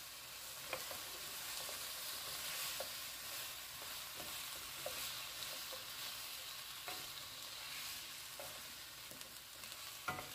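A wooden spoon stirs vegetables sautéing in crushed tomato in a pot, over a soft steady sizzle of frying, with scattered light taps of the spoon against the pot.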